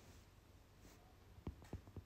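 Near silence: quiet room tone with a low hum, and a few soft, low thumps near the end.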